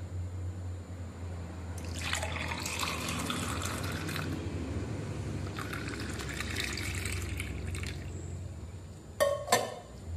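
Juice poured from a steel vessel into a drinking glass, a trickling, filling splash in two pours of about two seconds each with a short pause between. Near the end come two sharp knocks.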